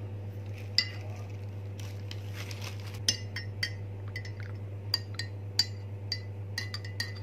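Metal spoon stirring ground ginger into hot water in a glass mug, clinking against the glass again and again, the clinks coming more often in the second half.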